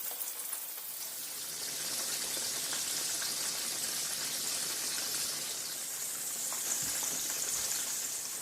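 Coated chicken pieces frying in hot oil over medium heat: a steady sizzle with a few small pops.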